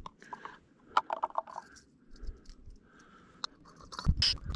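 Small metal clicks and scratchy rattles of a compact folding canister stove being taken out of its case and handled. A duller knock and rubbing follow near the end as the stove is screwed onto a gas canister.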